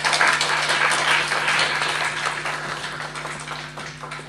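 Audience applauding at the end of a band's song, slowly dying away, over a steady low amplifier hum.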